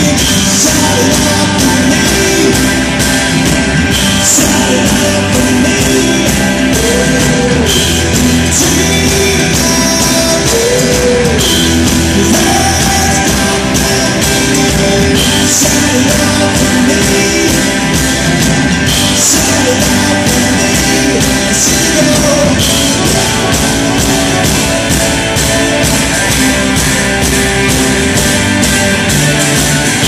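A live rock band playing loudly: a male lead vocal over electric guitars, drums and keyboards, heard from the audience in a theatre.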